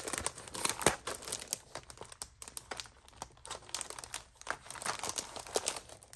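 Packaging crinkling and crackling as a package of metal cutting dies is opened by hand: irregular crackles with a few sharper clicks.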